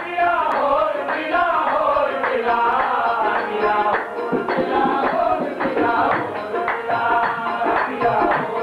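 Qawwali music: harmoniums playing sustained chords with rhythmic percussion under a man singing.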